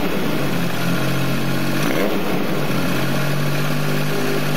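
1981 Yamaha XS850 three-cylinder engine idling through a full stainless-steel GR exhaust, with the throttle blipped about three times: near the start, about two seconds in, and at the end. Each rev rises and drops back to a steady idle.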